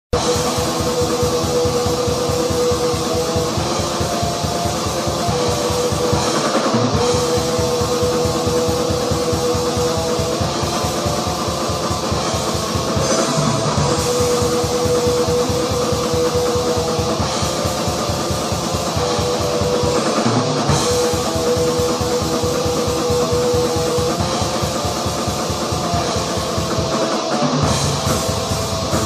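Raw depressive black metal from a lo-fi rehearsal recording: a held, droning guitar riff over fast, steady drumming, with a short break in the drum pattern about every seven seconds.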